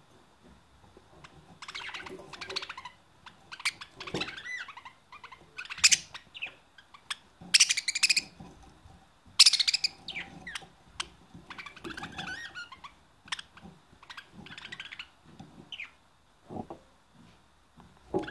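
Budgerigars chattering and warbling: bursts of rapid clicks, chirps and squeaky gliding whistles with short pauses between them, thinning out near the end.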